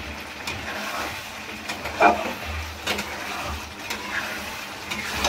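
Metal spatula stirring chicken curry in a black iron kadhai, scraping and clinking against the pan a few times, the loudest knock about two seconds in, over a steady low hum.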